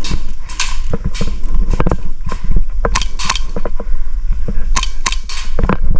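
Airsoft guns firing: a run of sharp, irregular pops, over a steady low rumble.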